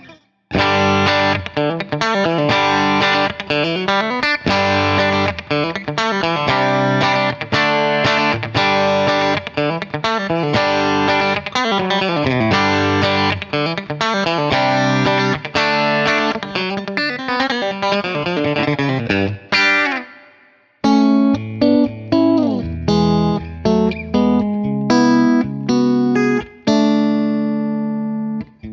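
Yamaha Pacifica Standard Plus electric guitar with Reflectone pickups, played clean on the middle and bridge pickups with coil split: a busy passage of picked chords and notes. It stops about 20 seconds in, and after a short pause it starts again on the bridge pickup alone, coil-split, with sparser chords and single notes.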